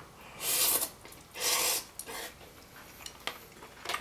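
A person slurping noodles from a cup of instant noodle soup: two loud slurps about a second apart, followed by a few faint clicks.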